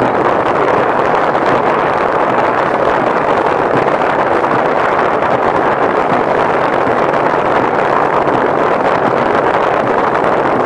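Motorboat engine running steadily at constant speed, heard from aboard with a dense, even rush of noise.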